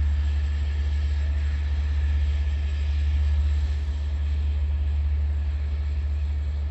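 Steady low rumble of an LIRR diesel locomotive running, even in level with no rise or fall in pitch.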